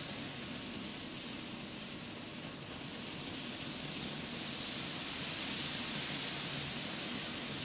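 Steady hiss of gas escaping from hydrogen peroxide decomposing into a mass of foam in a flask, growing a little louder about halfway through.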